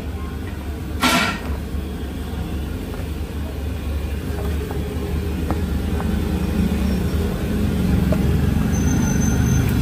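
Steady low background rumble, like engine or traffic noise, with a short loud hiss about a second in and a few faint clicks in the middle.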